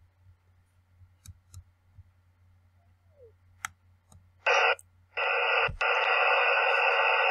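A few faint computer mouse clicks, then the soundtrack of a model railway video playing back through the computer: a brief burst about four and a half seconds in, then a steady rushing noise from a little after five seconds in.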